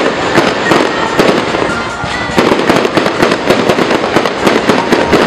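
Aerial fireworks display going off overhead: a dense, continuous crackle of many sharp overlapping pops and bangs.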